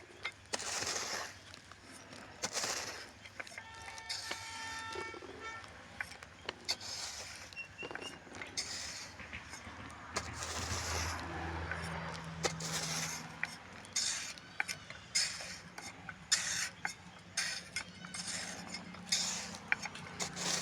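Mason's steel trowel scraping mortar and clinking against bricks in short, repeated strokes, with sharp clicks between them.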